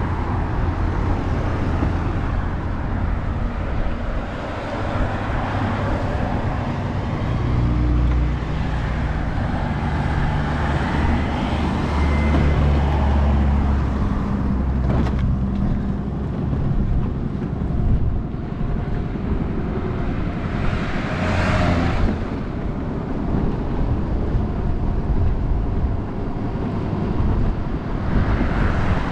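Road traffic: cars and a motor scooter passing, one swelling and fading as it goes by near the end, with a steady rumble of wind on the microphone.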